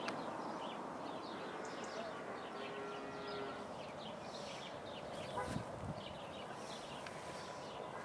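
Small birds chirping, many short calls overlapping over a steady outdoor background hiss. A distant drawn-out call sounds briefly about three seconds in, and there is a low knock a little past the middle.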